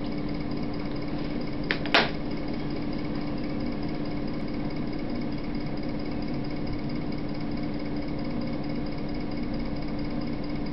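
Steady electrical buzz and hiss with a constant hum tone, with two sharp clicks about two seconds in.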